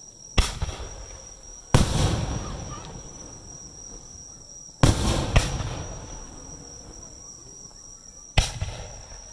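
Aerial firework shells bursting overhead: five sharp bangs, about half a second in, just under two seconds in, two close together around five seconds, and one near the end. Each is followed by a rolling echo that fades over a second or two.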